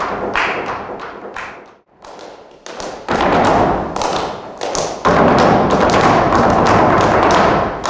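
Flamenco footwork (zapateado) with hand-clapping (palmas): shoes stamping and tapping on the stage floor. A few single strikes about a second apart and a brief pause, then the strikes quicken into a dense, loud run from about five seconds in.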